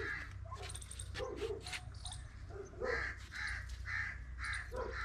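An animal calling repeatedly with short harsh calls, about two a second, starting about three seconds in.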